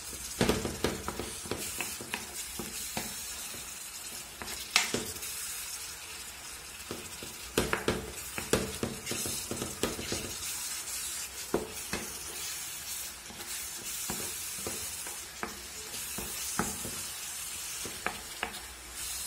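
Minced meat sizzling in a non-stick frying pan, stirred with a wooden spatula. The spatula knocks and scrapes against the pan at irregular moments over the steady hiss of the frying.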